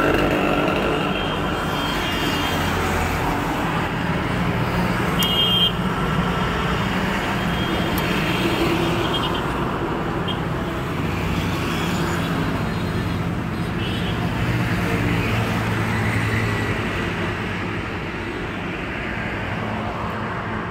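Steady roadside traffic noise from cars and other vehicles passing on a highway, with engine hum rising and falling as they go by. A brief high beep, like a horn toot, comes about five seconds in.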